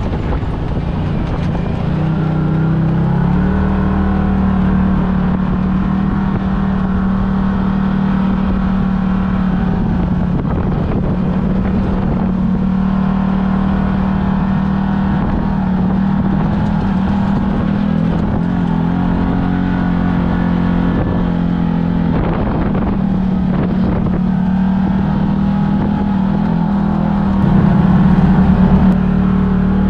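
Side-by-side UTV engine running at low speed through sand, heard from the cab. It holds a steady hum, rises in pitch about three seconds in, and gets briefly louder near the end.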